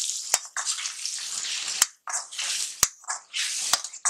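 Metal spatula stirring onions, tomatoes and ground spices in a metal kadai: a run of scraping strokes, with about four sharp clicks where the spatula strikes the side of the pan.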